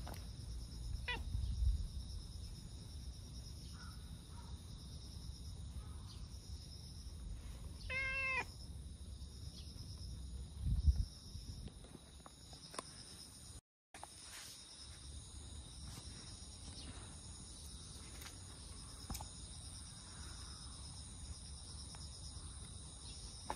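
Orange-and-white tabby cat meowing once, a short call about a third of the way in, with a fainter call near the start. A steady high-pitched hum runs underneath, and there are a couple of dull thumps.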